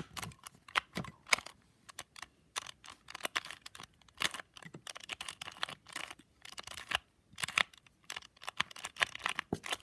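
A 2x2 puzzle cube being turned quickly by hand, its plastic layers clicking and clacking with each twist in an irregular run of clicks, as a sequence of moves is worked through to finish the solve.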